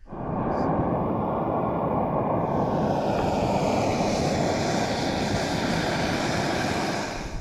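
Canister-top backpacking gas stove burning under an aluminium kettle: a loud, steady hiss of the burner, turning brighter about two and a half seconds in.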